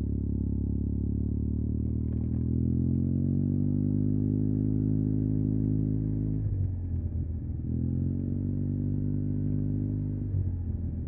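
Yamaha TMAX 560's parallel-twin engine through an Akrapovic carbon full-system exhaust, pulling away at low speed in traffic. The note rises and holds, falls away as the throttle closes about halfway through, then rises again and drops off near the end.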